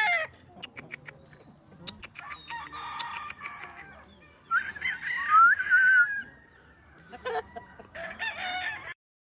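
Blue Mug gamefowl roosters crowing, with clucking between the crows. The loudest crow comes about halfway through: a rising, then wavering call about a second and a half long. Another burst of calls comes near the end before the sound cuts off abruptly.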